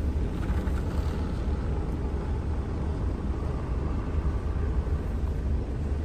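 A campervan's engine idling while stopped: a steady low rumble with no change in pace.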